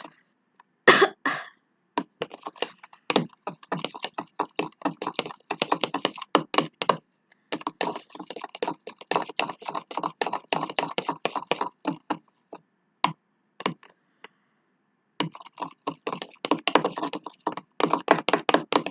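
Shower gel and salt being stirred in a bowl to make slime: a long run of quick, irregular clicks and taps, pausing for a couple of seconds about two-thirds of the way through.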